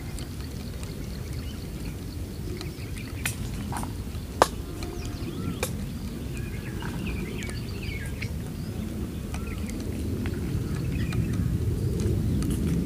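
A few sharp taps, the loudest about four seconds in, as raw eggs are cracked against a steel bowl, with birds chirping over a steady low rumble.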